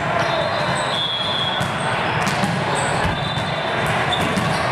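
Steady din of a big multi-court volleyball hall: many volleyballs being struck and bounced on the surrounding courts, as scattered knocks over a constant background rumble, with a few short high squeaks.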